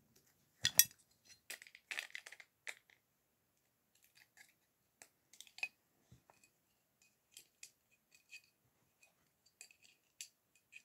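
Plastic Lego bricks clicking and clattering as they are handled and pressed together: a cluster of sharp clicks in the first three seconds, then sparser single ticks.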